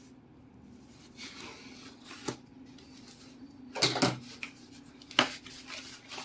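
Small cardboard parcel box being slit open with a plastic cutter and its flaps pulled apart: scraping and rustling of tape and cardboard, with a few sharp clicks and knocks, the loudest a cluster about four seconds in and a single sharp click just after five seconds.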